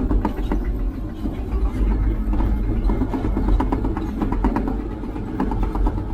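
Heavy construction machine running, a steady low engine rumble with rapid irregular clanking on top.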